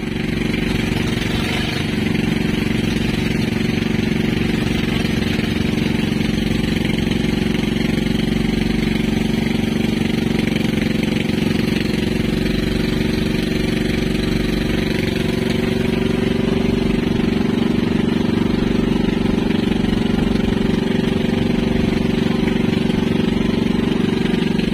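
Outrigger fishing boat's engine running steadily under way, with the rush of water from the wake along the hull.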